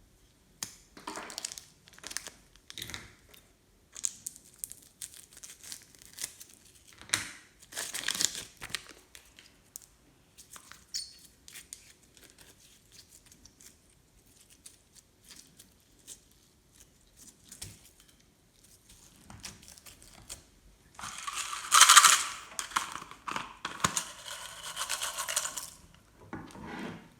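Crinkling and crackling handling noises while slime ingredients are mixed: scattered short crinkles and taps, then a louder, dense crackling run of about five seconds near the end.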